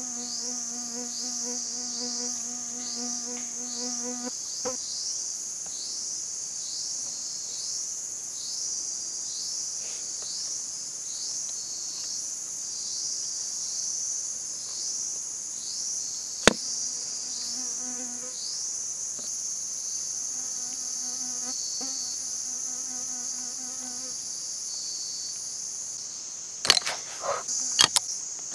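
Forest insect chorus: a high, steady buzz pulsing about twice a second throughout. A lower droning buzz comes and goes twice, and there is a sharp click about halfway and a few more clicks near the end, as the bamboo trap is handled.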